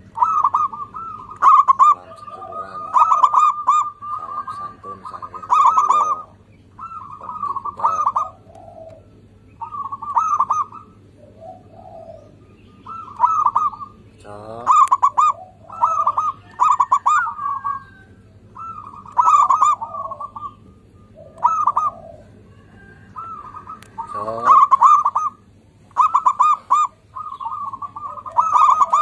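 Zebra dove (perkutut) cooing: loud runs of quick staccato notes, phrase after phrase every second or two, with a couple of quick rising notes along the way.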